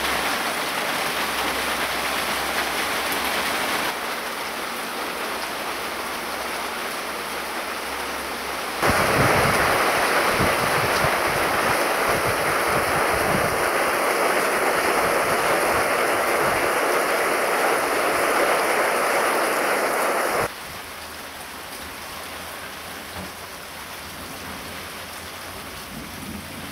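Heavy rain pouring down steadily, in a few spliced stretches of differing loudness. It is loudest and fullest in the middle stretch, from about 9 to 20 seconds in, then drops to a quieter patter.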